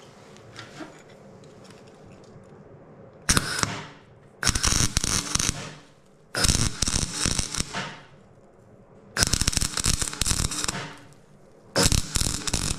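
MIG welder arc crackling and spitting in five welds of one to two seconds each, with short pauses between, as steel is tacked onto the engine.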